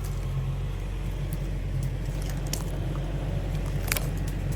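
Diesel excavator engine running steadily, a low drone, with two sharp clicks or snaps, one about halfway through and one near the end.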